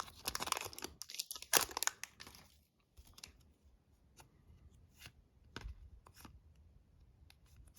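Trading cards and their pack being handled by hand: a rustling, tearing noise for the first two seconds or so, then scattered light clicks and taps as cards are flipped.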